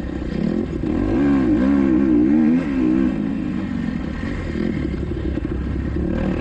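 Kawasaki KX250XC dirt bike engine being ridden hard, its revs rising and falling over and over as the throttle is worked.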